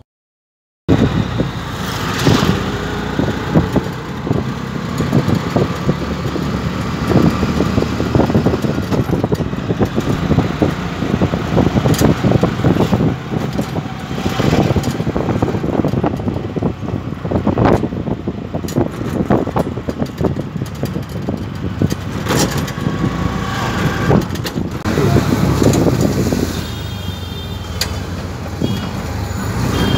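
Road traffic and vehicle noise on a night street in heavy rain, a dense steady rush broken by many irregular clicks and knocks.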